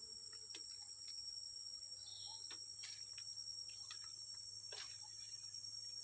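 Steady high-pitched drone of a rainforest insect chorus, with scattered soft clicks and rustles close by.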